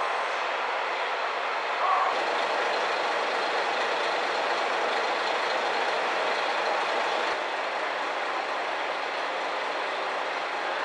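Steady running noise inside the passenger cabin of a Kashima Rinkai Railway diesel railcar: an even hum and rush with no distinct events. There are faint clicks about two and seven seconds in.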